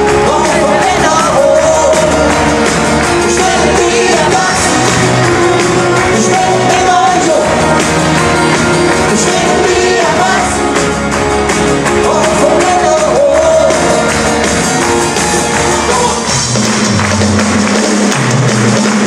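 A pop-rock band playing live with a lead singer, heard from the audience in a large hall. Near the end the backing changes to a steadier bass pattern.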